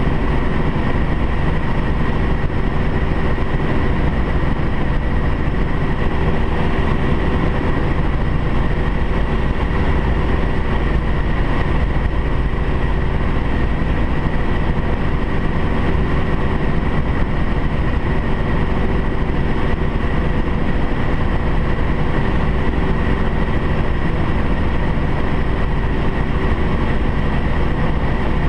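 Small single-engine bush plane's piston engine and propeller running steadily in cruise, heard from inside the cockpit as a loud, even drone with a constant pitch.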